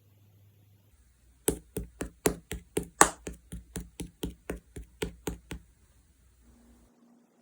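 Slime being pressed and poked, giving a quick run of sharp pops, about four a second, for roughly four seconds.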